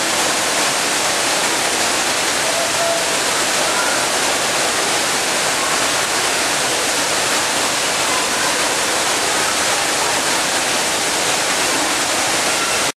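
Steady, even rushing of falling water, unbroken and without rhythm.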